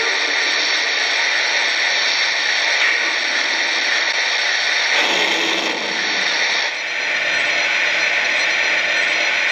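Lionel O gauge Western Pacific GS-6 model steam locomotive's onboard sound system playing a steady hissing, mechanical sound effect, which changes in tone about halfway through.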